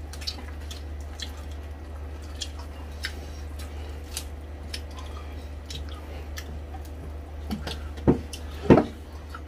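Close-miked eating sounds: chewing with small wet mouth clicks and smacks, and two louder smacks about a second apart near the end.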